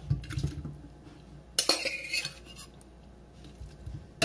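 Metal kitchen utensils clinking and knocking against cookware, with a short cluster of sharp clinks about halfway through.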